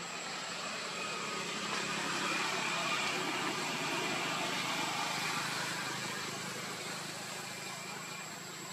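An engine passing by, growing louder to a peak about two to three seconds in, then slowly fading away.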